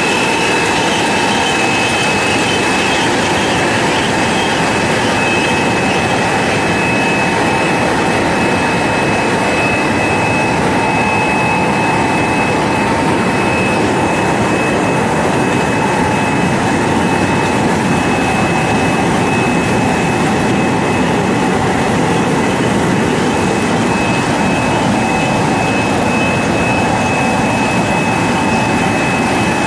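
Air-bubble vegetable washing machine running: a steady, loud machine noise with a constant high whine.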